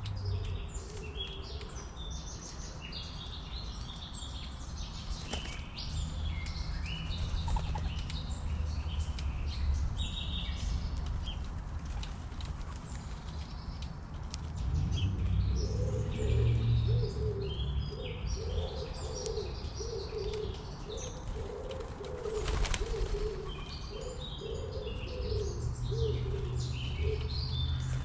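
Small birds chirping throughout, with a dove cooing a long run of low notes in the second half. A low rumble sits underneath, and there is a single sharp tap a little past the middle.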